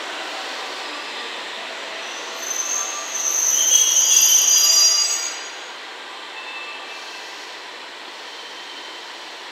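Steel train wheels squealing against the rails for about three seconds, several high whistling tones at once, over the steady running noise of a train out of view. The squeal cuts off a little past the middle and the running noise fades lower.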